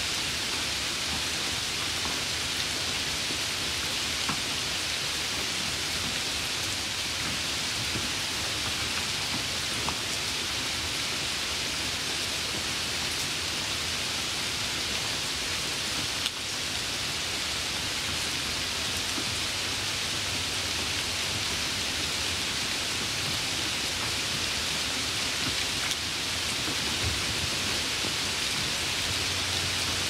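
Steady, even hiss like falling rain, with no pitch and no change throughout, and a faint click about halfway through.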